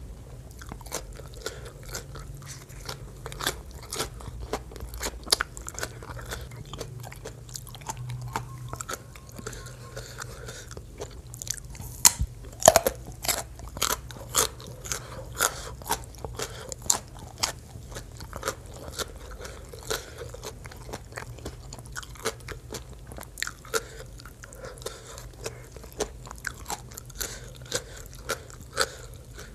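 Close-miked eating of som tam (Thai green papaya salad) and a raw purple Thai eggplant: wet chewing with many crisp crunching bites, the loudest crunches clustered a little under halfway through.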